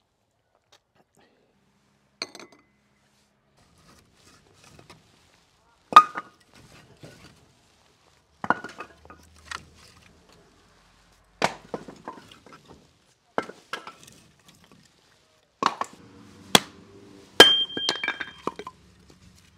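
Split hardwood firewood logs knocking against each other as they are pulled off a woodpile and gathered by hand: a sharp wooden knock every second or two, some with a brief ringing tone.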